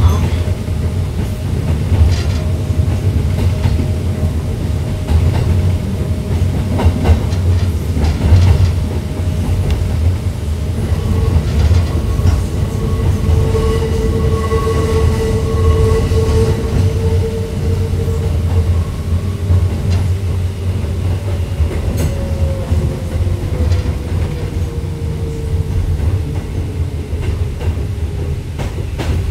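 Hakone Tozan Railway electric train running down its steep mountain line: a steady low rumble with scattered rail clicks. A held whining tone comes in about a third of the way through, and near the end another tone slowly falls in pitch.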